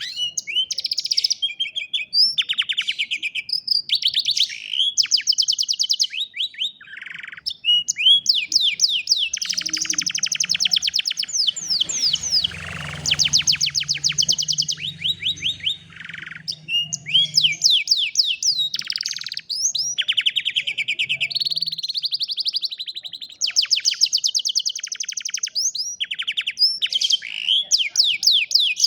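Domestic canary singing a long continuous song made of rapid trills: each phrase is a fast string of identical notes repeated many times a second, then switches to a new trill at a different pitch, with only brief pauses.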